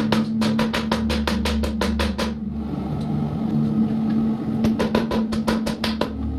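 Background music with a fast, even drum beat over sustained tones. The drums drop out for about two seconds partway through, then come back.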